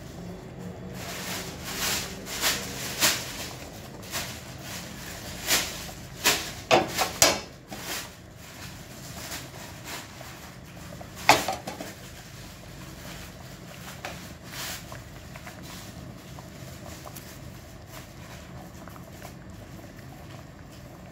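A pan of patties and vegetables simmering in broth on a gas hob, with a steady low hum. Over it come a run of sharp clicks and knocks of cookware in the first eight seconds, and one loud ringing knock about eleven seconds in.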